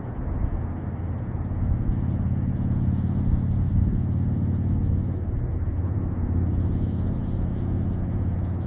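A steady low rumble of outdoor background noise.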